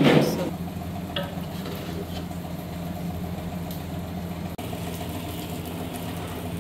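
A steady, even machine hum, like a motor running, with a short knock at the very start and a couple of faint clicks after it.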